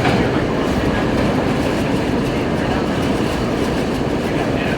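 R32 subway car running between stations, heard from inside the car: a loud, steady rumble and rattle of wheels on rail with faint scattered clicks.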